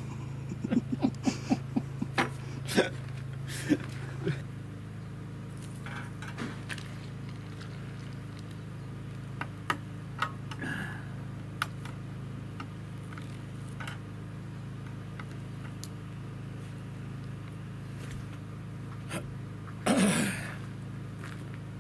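Ratchet tie-down strap being worked: a quick run of about eight ratchet clicks in the first few seconds, then scattered single clicks. A short loud burst near the end.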